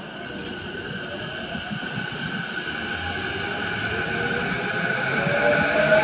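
JR East E233-0 series electric commuter train pulling away and accelerating: the VVVF inverter and traction motors whine, with steady high tones and a lower tone rising in pitch, growing louder as it gathers speed.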